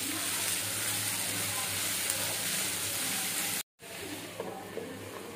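Chopped okra frying in a non-stick pan with a steady sizzle. About three and a half seconds in the sound drops out briefly and returns quieter, with a few light clinks as a glass lid is set on the pan.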